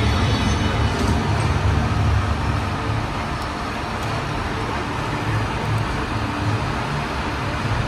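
Studio tour tram running steadily, a low rumble from its wheels and drive with an even noise over it.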